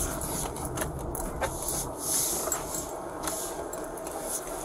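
Steady low rumble and hiss inside a Ford SUV's cabin, with a few light clicks and rustles scattered through.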